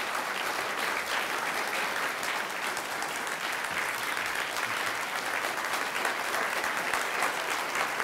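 Audience applauding steadily: many hands clapping in a dense, even patter at the close of a talk.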